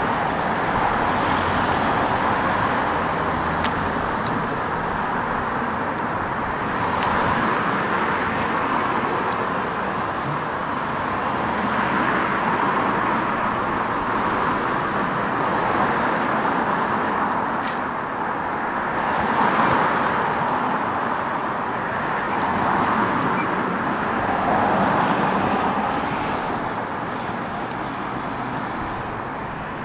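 Busy road traffic, with cars passing one after another, each one swelling and fading, over a steady traffic hum.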